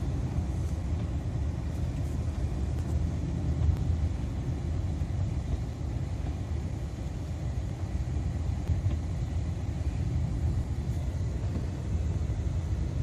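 Car driving at a steady pace: a low, even rumble of engine and road noise heard from inside the cabin.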